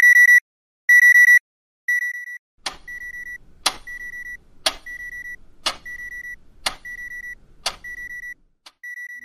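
Electronic alarm beeping about once a second, the first two beeps loud and the rest quieter. From nearly three seconds in, a wall clock ticks once a second alongside the beeps.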